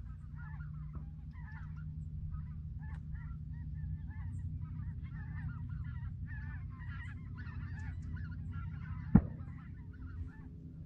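A flock of geese honking, many overlapping calls going on throughout. A single sharp knock comes near the end.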